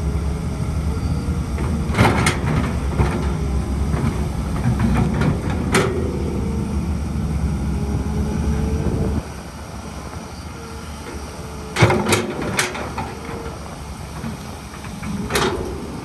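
Heavy construction machinery running: a steady diesel engine drone with sharp metallic clanks and knocks at intervals, a couple at a time, loudest about twelve seconds in. The engine noise drops off suddenly about nine seconds in.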